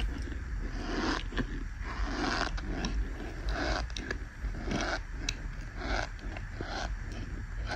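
Crumbled Irish Spring bar soap in a plastic tub being squeezed and pressed by hand, giving a run of squeaky crunches a little over one a second.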